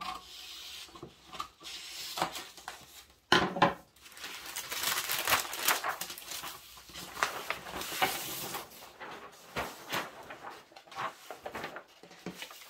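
Scissors cutting through stiff kraft pattern paper, then the paper rustling and crackling as the cut pattern piece is lifted and handled, with a sharp knock about three seconds in.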